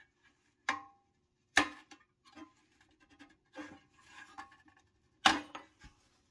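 Pressed-steel toy truck being handled as its front bumper is worked off: sharp metal clacks about a second in, near two seconds and again, loudest, about five seconds in, with light scraping and rattling between.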